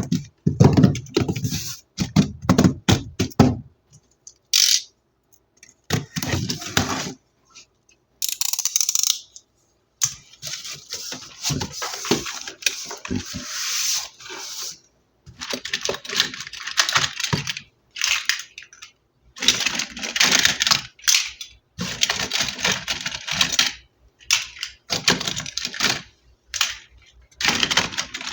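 Toy packaging being handled and torn open: plastic and cardboard crinkling and tearing in bursts of a second or a few seconds, with sharp clicks and short silent gaps between.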